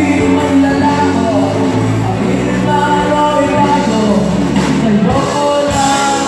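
Live rock band playing: electric guitar, electric bass and drums, with a lead vocal over them.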